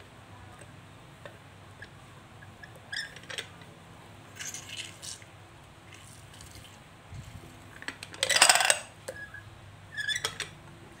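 Metal clinks and knocks from a hand-lever juice press as its lever and cup are handled, with a louder clatter about eight seconds in.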